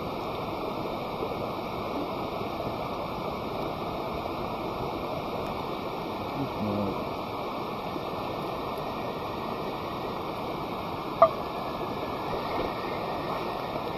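Steady rushing noise, like flowing water or wind, with one sharp crack about eleven seconds in.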